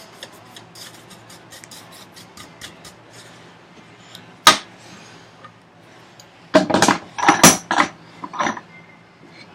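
Hand tools and wood knocking at a workbench: light ticking, then one sharp knock about four and a half seconds in, and a quick run of loud knocks and clatter about two seconds later.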